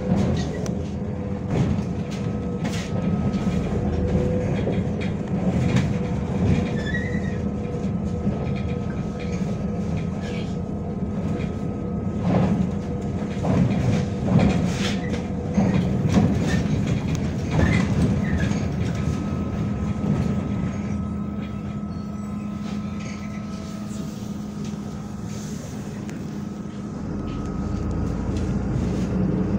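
MAZ-105 city bus heard from inside while under way: a steady engine and road rumble with frequent knocks and rattles from the body and fittings. The low rumble swells again near the end.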